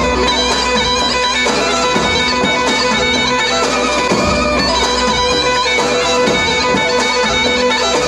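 Loud folk dance music led by a shrill reed wind instrument over a held drone note, with a regular drum beat.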